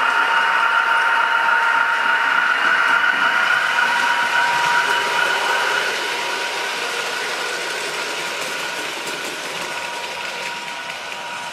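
H0-scale model freight train running on the layout track, a steady whine over the rattle of the wheels. Louder at first, it fades gradually over the second half as the train pulls away into a tunnel.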